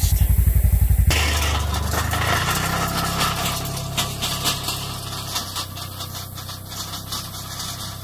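Polaris Ranger XP1000 side-by-side running as it tows a cultipacker over tilled dirt, heard close with a rapid low pulsing for about the first second, then growing fainter as it drives away. Scattered clanks and rattles come through over the engine.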